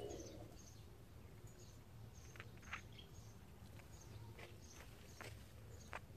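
Faint outdoor background with small birds chirping: short high chirps repeating through it and a few sharper calls now and then.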